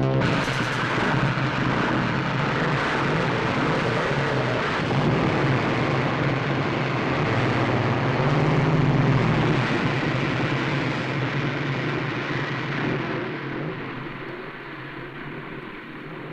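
Loud, steady engine noise, fading out over the last few seconds.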